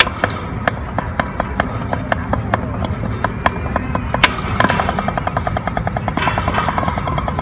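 Drumsticks striking a drum practice pad: single strokes a few times a second, then just past halfway a fast, even run of strokes and a denser roll near the end. A steady low rumble runs underneath.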